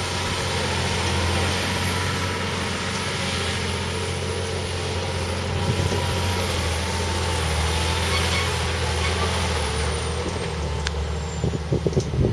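Diesel engine of a MAN tanker truck running steadily under load as it climbs a steep dirt track with its tank full of water. A few short thumps come near the end.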